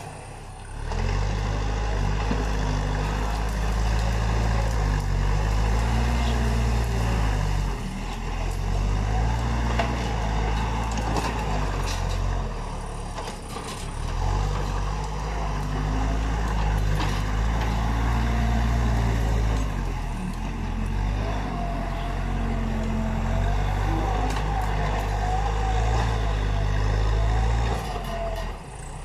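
Backhoe's diesel engine working, its note rising and falling in waves as the load changes. A wavering, higher whine runs over it for much of the second half.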